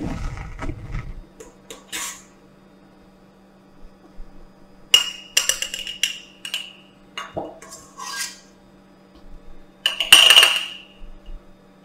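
A spatula scrapes and knocks in a stainless steel mixing bowl while cheesecake filling is spooned into small glass jars. Glass jars and the bowl clink with short ringing notes about five seconds in, and loudest near the end.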